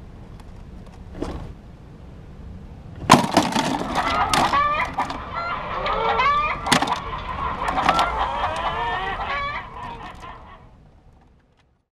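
A sharp snap about three seconds in, then a trapped rodent squealing: repeated short rising-and-falling squeals over scattered scrabbling clicks, fading out near the end.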